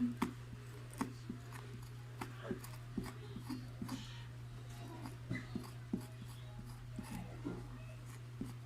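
Scattered soft clicks and small rubbing noises from slime being worked off a T-shirt with ice, over a steady low hum.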